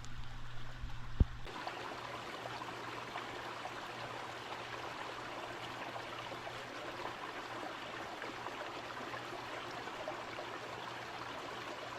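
Small creek running, a steady rush of flowing water that comes up strongly about a second and a half in, just after a single sharp knock.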